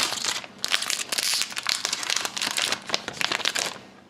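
Foil wrapper of a hockey card pack being torn open and crinkled by hand, a dense crackling with a brief lull about half a second in, dying away near the end.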